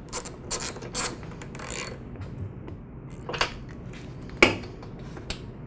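A spark plug being threaded by hand into a lawn mower engine, with small metallic clicks and taps. About four and a half seconds in comes a sharp snap as the rubber spark plug boot is pushed onto the plug.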